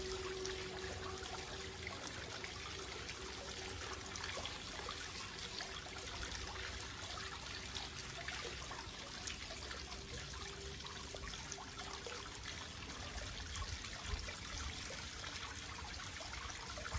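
Water trickling and splashing steadily in a small decorative marble fountain, with scattered small drips. A faint steady hum fades out about two-thirds of the way through.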